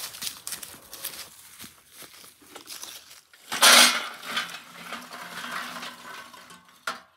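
Lump charcoal tipped from a bucket into a metal firepot: a loud clatter of charcoal against metal about three and a half seconds in, then quieter rattling as the pieces settle.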